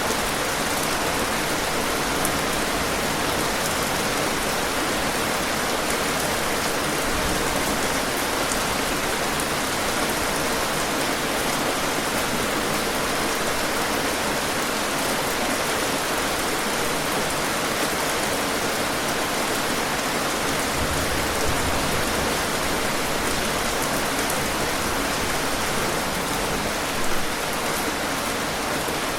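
Steady rain falling, a dense, even patter of drops, with one brief louder moment near the end.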